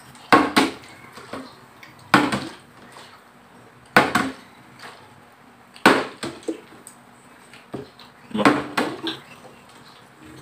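A partly filled plastic water bottle being flipped again and again and landing on a glass-topped table: a sharp thud about every two seconds, five in all. The first lands with a quick second knock.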